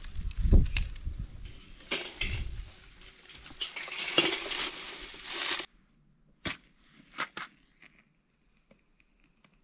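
Dry twigs and dead leaves rustling and snapping as they are gathered up by hand into a metal basin, with a few dull bumps. Then the sound cuts to near quiet with a few short, sharp clicks.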